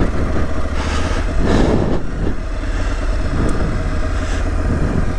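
Aprilia Tuareg 660's parallel-twin engine running steadily at low revs as the motorcycle rolls slowly down a slippery snow-covered trail.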